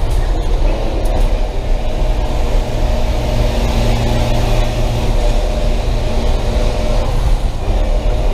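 School bus engine running hard under load, heard from inside the cab as a loud, steady drone, with a couple of brief clicks near the start.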